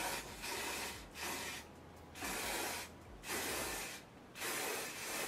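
Aerosol can of Ebin lace adhesive spray hissing in five short sprays, each under a second, about one a second.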